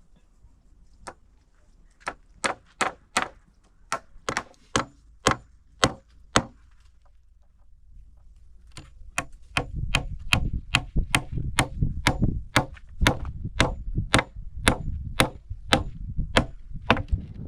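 Sharp wooden knocks struck one after another: a run of about a dozen, a short pause, then a faster run of about three a second with a heavier low thud under each.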